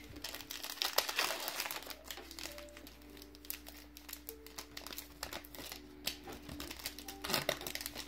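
Foil wrapper of a Pokémon booster pack crinkled and torn open by hand: a run of crackling rustles, heaviest about a second in and again near the end. Faint music plays underneath.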